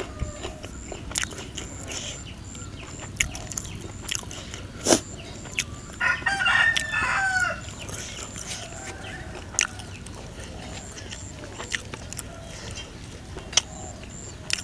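A rooster crows once, about six seconds in, a call of a second and a half that rises and then falls away. Scattered sharp clicks and smacks of eating with the hands and chewing sound around it, the loudest just before the crow.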